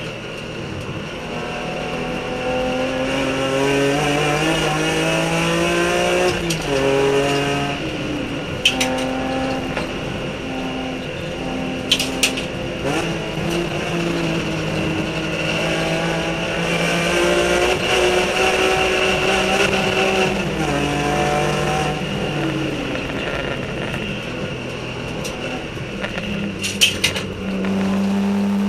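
Onboard sound of a BMW E46 M3 race car's straight-six engine under hard acceleration, its pitch climbing through each gear and dropping back at every shift. Around twelve seconds in and again near the end there are short sharp clicks as it brakes and changes down for corners.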